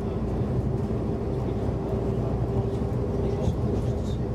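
Scania Enviro 400 double-decker bus heard from inside the passenger saloon while driving along: a steady engine and road rumble with a steady mid-pitched whine over it.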